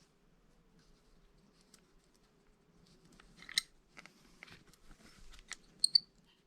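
Small parts of a Tecumseh carburetor being handled: light clicks and scrapes of the float and its hinge pin being fitted. The last ones, near the end, are sharper metallic tinks. The float pin is sticking and won't go back down in its seat.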